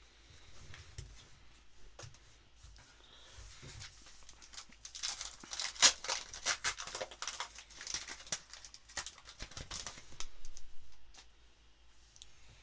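Foil wrapper of a 2021 Donruss basketball card pack being torn open and crinkled by hand. Soft handling at first, then dense crackling from about five seconds in, loudest around six seconds, dying away near the end.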